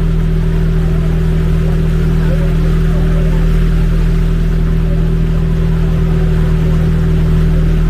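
Motorized bangka's engine running steadily at cruising speed, a constant low drone, with water rushing past the hull.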